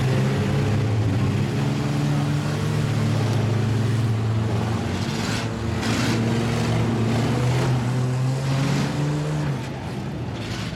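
Several demolition derby cars' engines running and revving at once, the pitch of the engine note rising and falling as the drivers accelerate and back up. A couple of brief clatters about halfway through.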